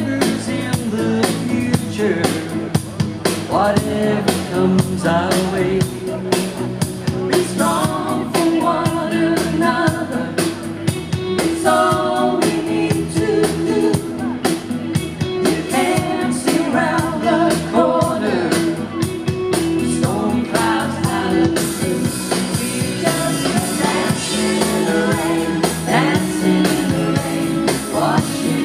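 Live pop band with singers: vocals over a steady drum beat and backing instruments, as heard from the audience in a concert hall.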